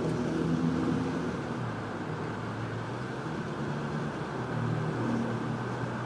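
A car engine running steadily with road noise, its low hum shifting a little in pitch.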